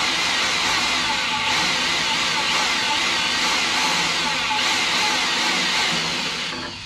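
Electric drill boring a bolt hole through steel plate: a steady whirring and cutting sound that winds down and stops near the end as the bit goes through.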